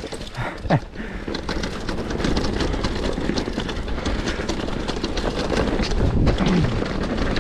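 Downhill mountain bike riding a rough trail: tyres crunching over dirt and gravel, with a steady rush of noise and dense crackling and rattling. A brief sharp falling sound comes under a second in.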